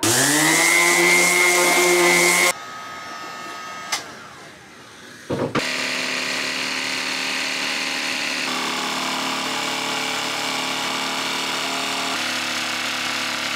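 Random orbital sander spinning up on wood, its pitch rising and then holding, for about two and a half seconds. It cuts off into a quieter stretch with a single click. About five and a half seconds in, a corded jigsaw starts and runs steadily cutting plywood.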